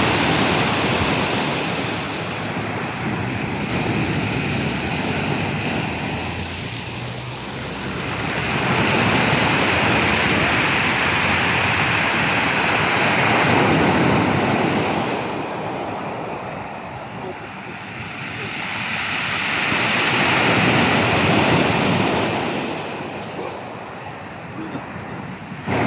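Rough sea surf: waves break and wash on the shore in slow surges, swelling and fading three times about ten seconds apart, with wind buffeting the microphone.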